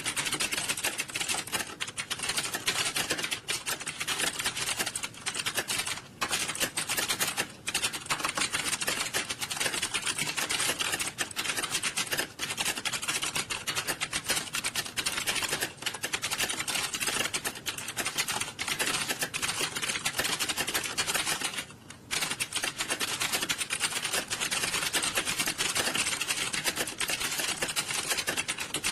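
Many computer keyboards being typed on fast at once in an exam hall during a typing test: a dense, continuous clatter of keystrokes, with a brief lull about three quarters of the way through.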